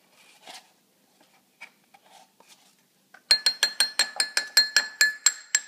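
Metal spoon knocking rapidly on the rim of a ceramic bowl, about six ringing clinks a second for two seconds starting about three seconds in, knocking scooped ice cream off the spoon. Before that, faint scrapes and clicks of the spoon working the last ice cream out of the tub.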